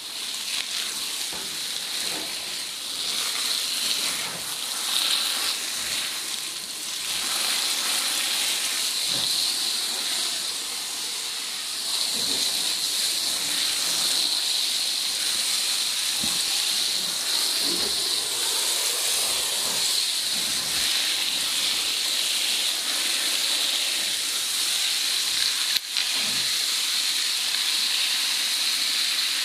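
Garden hose spray nozzle hissing steadily as a fine jet of water sprays onto chopped straw, wetting it as oyster mushroom substrate.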